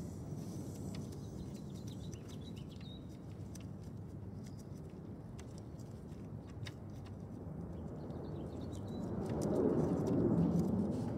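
Outdoor background noise with a few faint bird chirps and scattered light clicks of hands working on metal fittings. A broad rush of noise swells about nine seconds in and eases off near the end.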